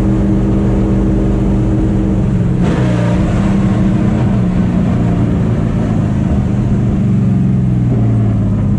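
The V8 of a 900-horsepower NASCAR race truck, heard from inside its cab while it drives slowly, with a steady low drone. About two and a half seconds in it suddenly grows louder and rougher, then runs on steadily.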